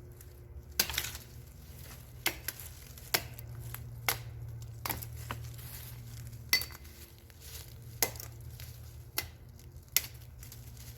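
Hand-forged camp axe chopping into the resinous fat wood of a downed pine, about nine sharp strikes roughly a second or so apart, cutting off a big chunk.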